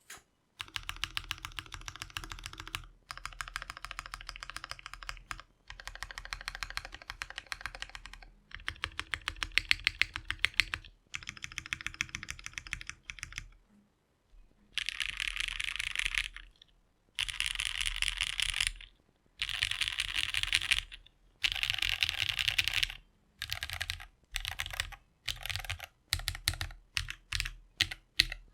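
Typing on a Monokei KFE CE custom mechanical keyboard fitted with lubed Cherry MX Black Hyperglide linear switches, an FR4 half plate and GMK keycaps. Each burst of rapid keystrokes lasts a couple of seconds, with short pauses between. From about halfway on the strokes sound brighter, and near the end the bursts get shorter and choppier.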